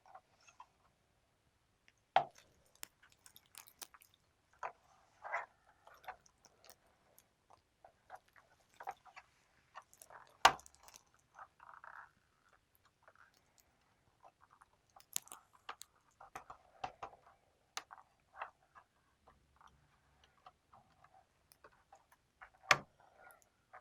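Plastic bottom case of a Lenovo Ideapad 320 laptop being pried open: scattered clicks, crackles and scraping as its clips are worked loose, with sharp snaps about 2 s in, around the middle and near the end as clips let go.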